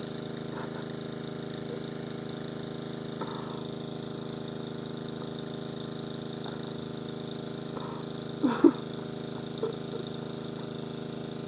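A steady engine hum running evenly, with a brief voice sound about three-quarters of the way through.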